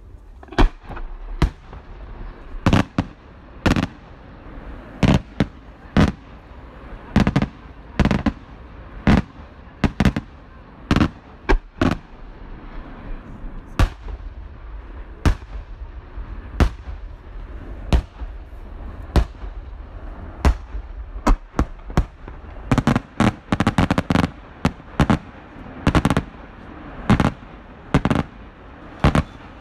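Aerial firework shells bursting in a steady sequence of sharp bangs, about one a second, with quicker runs of several bangs close together a little past two thirds of the way through.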